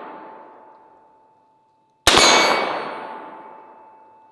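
Single rifle shots from an AR-15 with a 36-inch barrel. The tail of the previous shot fades at the start, and a fresh sharp crack comes about two seconds in. Each crack dies away over about two seconds with a faint steady ring lingering in it.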